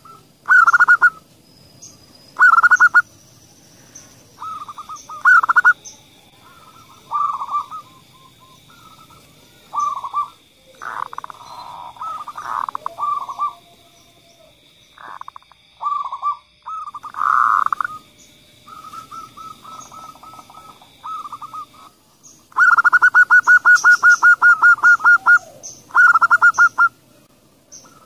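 Zebra doves (perkutut) cooing in repeated short, rapid, pulsed phrases with pauses between them, and a longer rolling run of pulses near the end. A faint thin steady high tone sounds behind them for much of the time.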